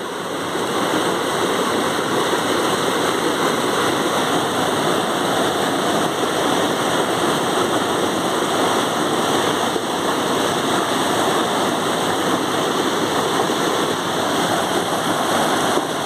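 Steady rushing of flowing water, an even hiss with no separate splashes or knocks.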